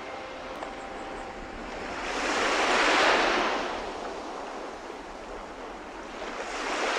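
Ocean surf: waves washing in, one swell peaking about three seconds in and another near the end.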